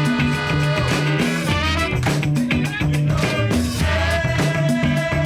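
Background music with a steady upbeat rhythm, bass line and horn-like or sung melody.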